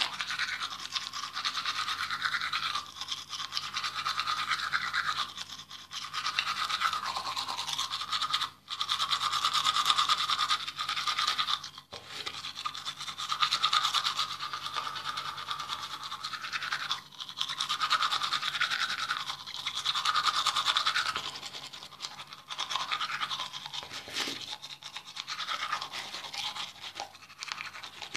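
Toothbrush scrubbing teeth close to the microphone: a continuous wet brushing noise with a few brief pauses.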